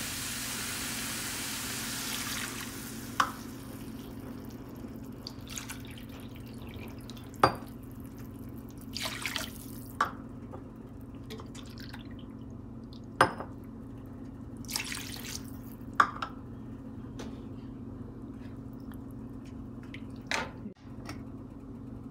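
Water poured from a cup into a hot frying pan of sautéed spinach and onions: the frying sizzle dies away within the first few seconds, then come a few pouring splashes and drips with several sharp clinks of the cup against the pan, over a steady low hum.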